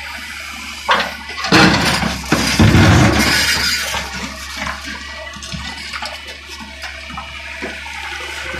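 Wheeled excavator digging rocky soil over its running engine: a knock about a second in, then a loud rush of dirt and stones pouring and rattling, then lighter scattered clatter.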